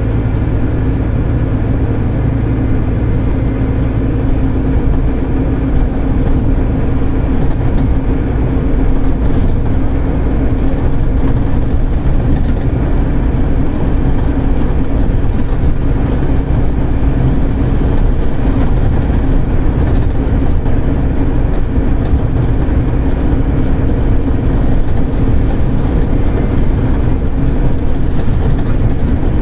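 Scania DC9-29-280 diesel engine of a Scania K280UD double-decker bus running steadily under way, heard from inside the passenger saloon with road noise. It grows slightly louder about eight seconds in.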